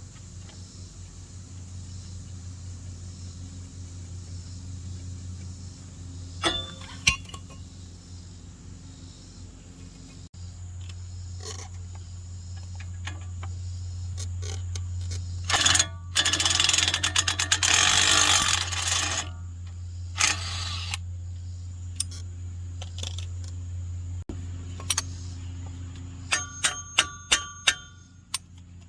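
Tool work on a car's front wheel hub. A steady low hum runs under a few metal clicks, and a loud burst of rattling tool noise lasts about three seconds around the middle. Near the end comes a quick run of sharp, ringing metal taps.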